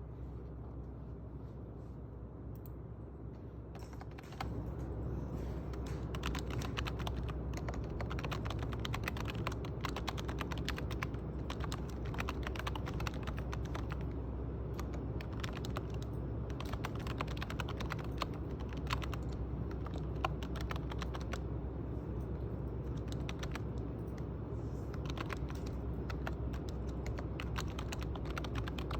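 Typing on a computer keyboard: rapid, continuous keystrokes begin about four seconds in, over a steady low hum.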